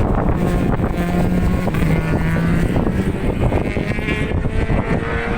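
Racing superbike engines at high revs, with one steady engine note held for the first two and a half seconds or so, over heavy wind buffeting the microphone.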